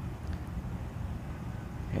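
Isuzu MU-X diesel engine idling, heard inside the cabin as a low, steady rumble.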